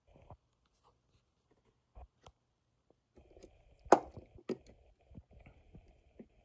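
A built Lego motorcycle model being handled on a tabletop: a few faint plastic clicks, then from about three seconds in a rustle of handling with one sharp knock about four seconds in and lighter ticks after it.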